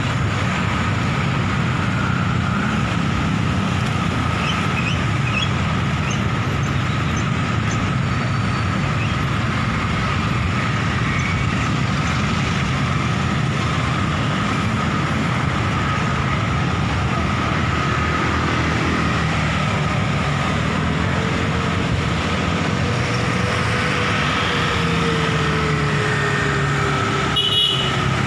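Steady rumble of wind on the microphone while riding a bicycle in city traffic, with motor scooter and car engines around. An engine note rises and then falls in the last third, and there is a brief knock near the end.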